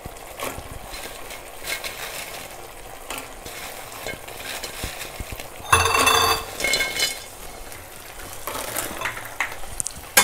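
Thick sauce sizzling in a non-stick kadai while a wooden spatula stirs and scrapes through it. There is one louder clatter about six seconds in, as fried cauliflower florets are tipped into the sauce.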